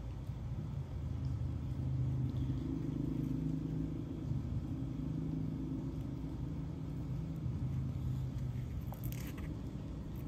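A steady low rumbling hum, with a brief faint rustle about nine seconds in.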